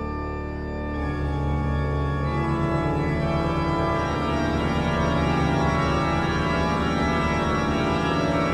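Organ music playing sustained, held chords, growing fuller as more notes come in about a second in.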